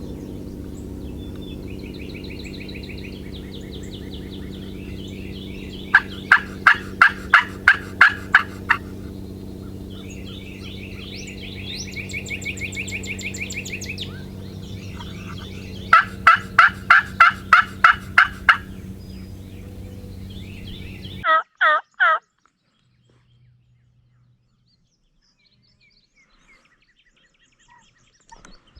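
Wild turkey yelping: two runs of about nine or ten loud, evenly spaced yelps, some ten seconds apart, over the steady low drone of a plane passing overhead. After a last short burst of three notes the drone cuts off abruptly.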